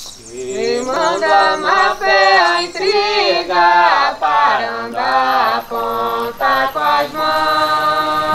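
A group of voices singing a chant-like choral phrase. It ends on a long held chord about seven seconds in.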